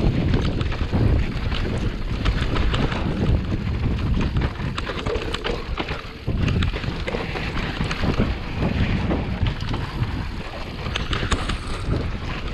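Wind buffeting a GoPro's microphone during a fast descent on a Mondraker Level R e-mountain-bike, over the rumble of knobby tyres rolling on a loose dirt trail, with frequent short clicks and rattles from the bike over the bumps.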